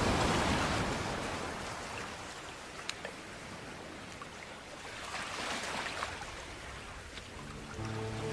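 Steady rush of falling water at a waterfall, swelling and easing in level, with music fading in near the end.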